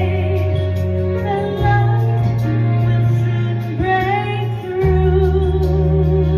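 Slow song music: a singing voice holds long, wavering notes over an instrumental backing, and the sustained bass note changes twice.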